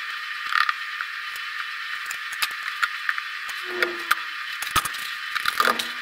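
Metal reinforcing bars clicking and rattling lightly as they are laid into a mould of wet concrete, with a few short creaks, over a steady hiss.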